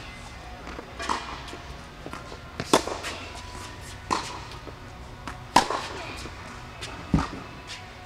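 Tennis ball being hit back and forth in a groundstroke rally: sharp racket pops about every one and a half seconds, five in all, the two loudest nearly three seconds apart.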